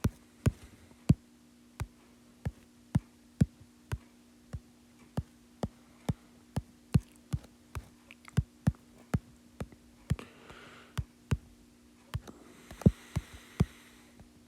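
Computer mouse clicking again and again, about two clicks a second at an uneven pace, over a low steady hum.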